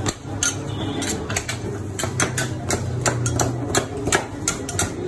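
Two metal spatulas chopping and scraping ice cream on a cold-stone steel slab, giving rapid, irregular clacks of metal on metal, several a second, over a steady low hum.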